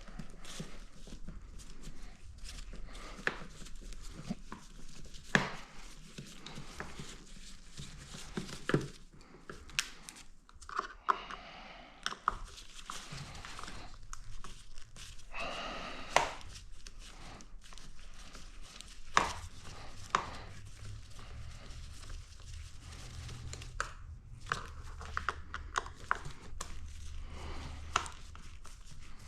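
Hand work on motorcycle parts: irregular clicks, taps and knocks of tools and plastic pieces being handled, with some rustling and crinkling.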